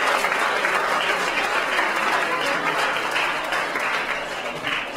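Audience applauding, thinning out toward the end.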